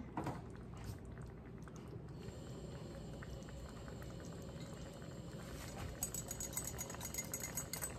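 Vegetables simmering in broth thickened with cornstarch slurry in a stainless steel pan, the heat just turned up so the slurry will set: a low steady bubbling, with quick popping and crackling picking up about six seconds in.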